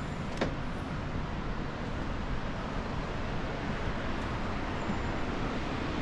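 Steady, even rush of flowing water from the waterfall and stream, with one sharp click about half a second in.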